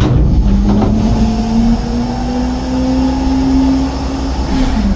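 Autocar/Heil Half/Pack garbage truck running at raised revs to drive its hydraulic packer during a packing cycle: a steady engine drone with a held tone that creeps up slightly in pitch, then dips near the end as the load changes.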